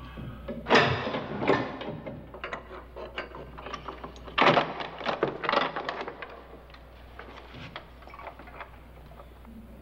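A run of irregular knocks and clatter. The loudest come about a second in and again about four and a half seconds in, then they thin out to faint ticks near the end.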